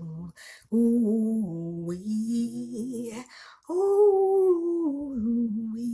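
A woman singing an improvised gospel praise song a cappella, in long held, sliding notes: one phrase, a short break, then a second phrase pitched higher about four seconds in.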